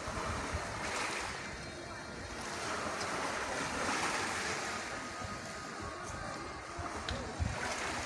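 Sea waves washing onto the shore, swelling and easing in slow surges.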